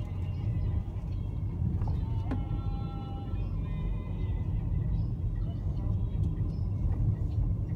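Steady low rumble of a car driving, its engine and tyres heard from inside the cabin. Faint music plays over it.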